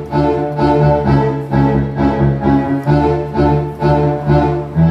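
Yamaha CK61 stage keyboard played with a bowed-strings voice: string chords over a low cello-like line, pulsing about twice a second.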